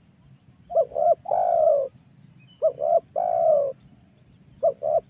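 Spotted dove (tekukur) cooing a lure call. Its phrase of two short coos and one longer, slightly falling coo repeats about every two seconds, twice in full, with a third phrase starting near the end.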